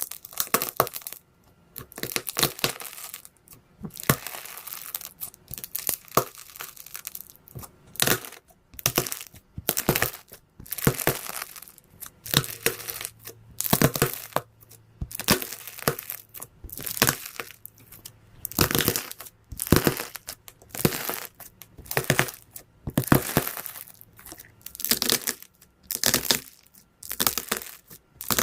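Slime being squeezed, stretched and pressed by hand, making a run of crackling, squishing bursts with small pops, about one every second.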